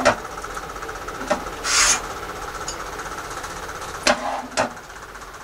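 Quilting tools handled on a cutting table: a rotary cutter and an acrylic ruler give several light knocks, and the blade makes one short rasping swish through fabric about two seconds in. A faint steady hum runs underneath.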